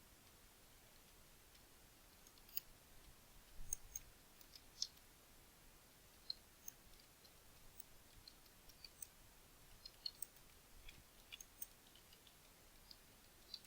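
Faint typing on a computer keyboard: scattered, irregular keystroke clicks, starting a couple of seconds in.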